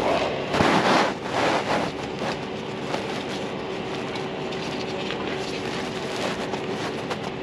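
Scraping and rustling of hands working a stretched rubber water pump belt around the crankshaft damper of a CAT 3126 diesel, loudest in the first second and a half, with a few light clicks afterwards, over a steady background hum.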